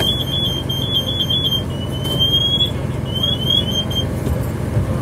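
Fire apparatus engines running at a steady low rumble. Over them a high electronic tone beeps on and off, turns into a rising glide about two seconds in, then gives a few short rising chirps.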